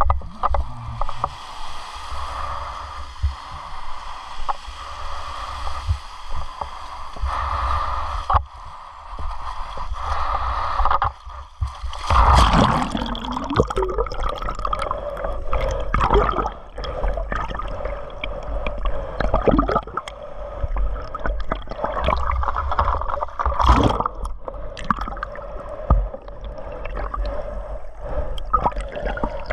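Water sloshing and gurgling around the camera as a snorkeler swims. From about twelve seconds in it is heard muffled from underwater, with the swimmer's hand strokes and occasional sharp knocks.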